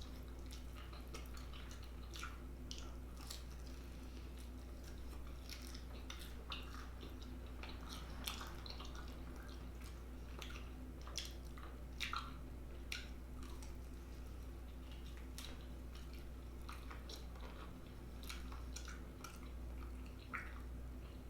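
Close-up eating sounds: a person chewing buffalo-sauced chicken, with scattered wet mouth clicks and smacks.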